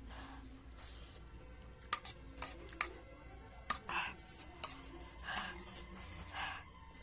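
Cutlery clicking against a dish a few times, sharp separate clinks about two to four seconds in, while spicy noodles are eaten.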